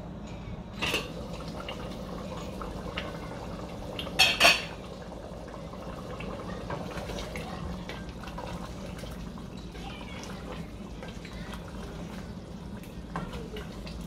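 Stainless steel cookware being handled: metal knocks about a second in, and louder clanks about four seconds in as the pot lid comes off. Then a wooden spatula stirs and scrapes curry in the pan, over a steady low hum.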